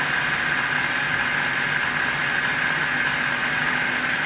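Electric food processor running steadily, a high motor whine over a low hum, as it blends mayonnaise into a creamy garlic sauce mix.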